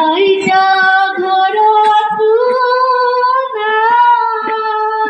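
A woman singing an Assamese song unaccompanied into a microphone, holding long, steady notes that step from one pitch to the next.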